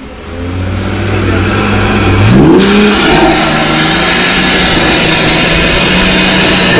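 Vehicle engine running at idle, then revving up about two seconds in and holding at a higher steady speed, with a hiss over it.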